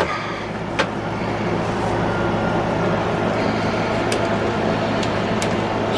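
Steady droning hum of an air-conditioning condenser unit running, with a few light clicks.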